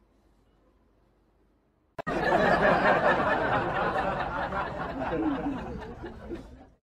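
Faint room tone, then about two seconds in a sudden loud burst of a group of people laughing, which cuts off abruptly shortly before the end.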